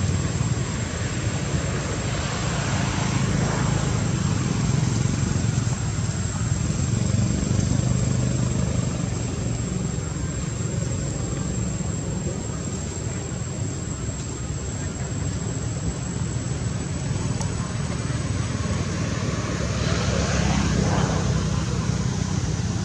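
Steady low mechanical drone, like engine or traffic noise, with a thin steady high whine over it. It swells and fades twice, about three seconds in and again near the end.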